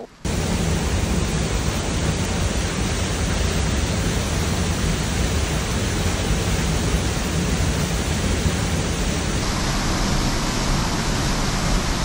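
A two-tier waterfall heard up close: a loud, steady rush of falling water. Its tone changes slightly about nine seconds in.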